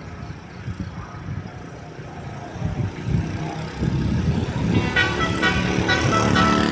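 Bus engine drawing closer, then from about five seconds in the bus's Basuri telolet horn sounds a quick melody of short horn notes.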